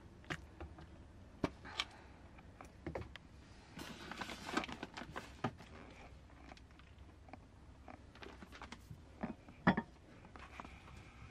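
Scattered soft clicks, taps and scrapes of a plastic serving spoon against a glass bowl and a plate as beans are dished up, with a brief rustle about four seconds in and a sharper tap near the end.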